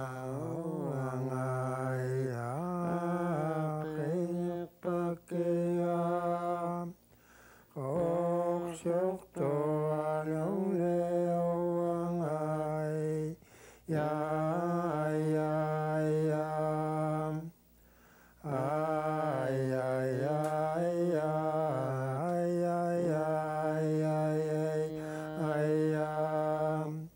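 A man singing an Inuit ajaaja song solo, in long held notes that bend slowly in pitch, with brief pauses between phrases.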